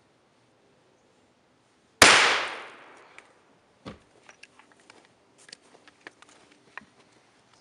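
A single 12-gauge double-barrel shotgun blast about two seconds in, sharp and loud, with a tail that dies away over about a second. It is followed by a duller thud and scattered light ticks.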